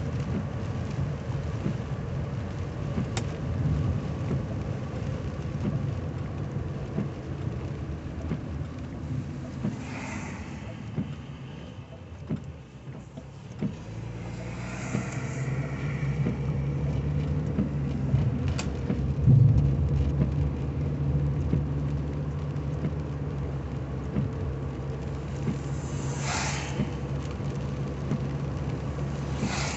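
Inside a 1985 Cadillac Cimarron driving through heavy rain: the engine runs with a steady hum under tyre and rain hiss on the wet road. The hum eases off about halfway through and then builds again as the car pulls away. A windshield wiper swishes across the glass every several seconds.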